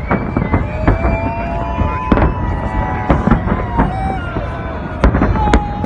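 Fireworks display: a dense run of bangs from aerial shells going off, with whistling tones sliding slightly in pitch over them.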